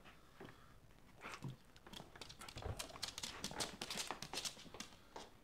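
A small dog making a quick, irregular run of clicks and taps close to the microphone, thickest from about a second in until near the end.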